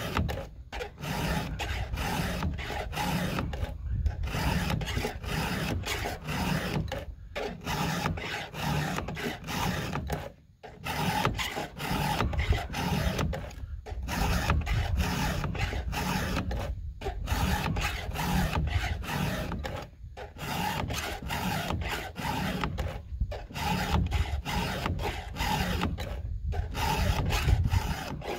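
A 7/32-inch round chainsaw file rasping across the cutter teeth of a Husqvarna 572 XP's chain in quick repeated strokes. About every three seconds the strokes pause briefly as the file moves on to the next tooth.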